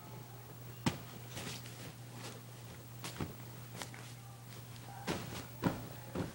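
Scattered thumps and rustling from a small child flailing and hitting about on a bed, with the sharpest knock a little under a second in, over a steady low hum.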